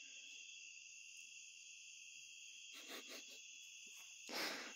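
Faint, steady evening chorus of crickets, a continuous high-pitched chirring. A soft brief noise comes about three seconds in and a louder short rush of noise near the end.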